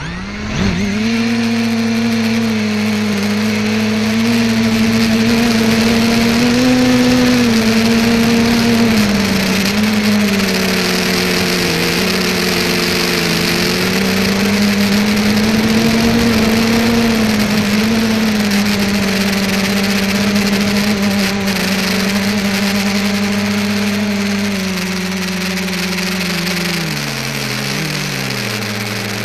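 Multicopter's electric motors and propellers spooling up at takeoff, then droning steadily in flight with rushing air noise, heard from a camera on the craft. The hum wavers up and down in pitch and wobbles more near the end.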